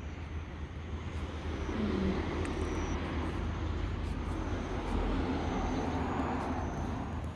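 Distant engine noise, a rushing sound over a low hum, swelling about two seconds in and then holding steady.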